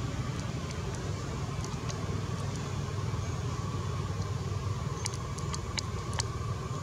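Steady low background rumble with a faint steady hum and scattered short, sharp ticks that come more often in the second half.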